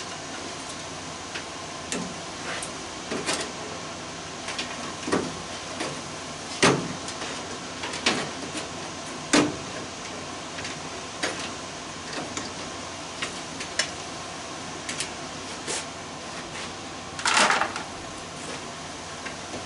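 Irregular clicks and knocks of hand tools and metal parts as a furnace is taken apart for scrap, with a longer scrape about seventeen seconds in, over a steady hiss.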